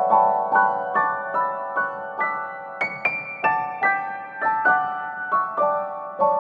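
Background music: a gentle piano melody of single struck notes, each fading before the next, about two or three a second.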